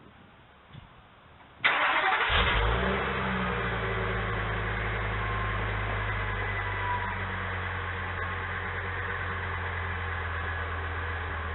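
Ford Econoline's 6.8-litre Triton V10 starting: it cranks and catches with a sudden loud burst about two seconds in, flares briefly, then settles into a steady idle through the exhaust.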